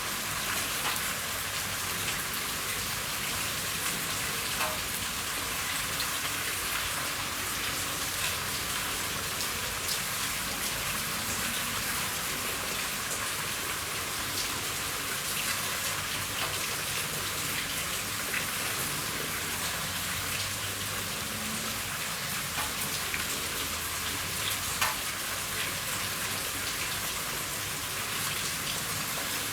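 Steady rain falling on a roof, a dense even patter with scattered louder individual drops, one sharper drop hit about 25 seconds in.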